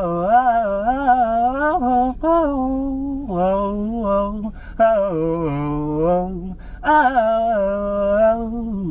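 A man singing wordless gospel-style vocal runs in several short phrases, his pitch sliding and wavering through the notes.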